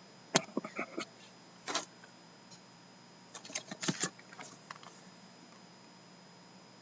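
Scattered light clicks and taps of a sealed trading-card hobby box being handled. One cluster comes in the first couple of seconds, another around four seconds in, and then only faint room hiss remains.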